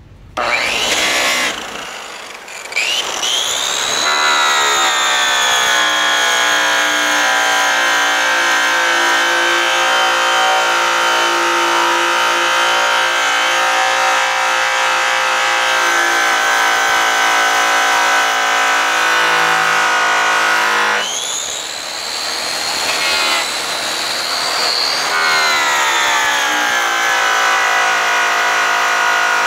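Makita grinder-polisher spinning a buffing wheel loaded with brown Tripoli compound against an aluminum fuel tank, cutting out a light scratch. The motor starts about half a second in, sags and picks up again, then runs with a steady high whine. About two-thirds of the way through its pitch rises for a few seconds while it gets quieter, then settles back.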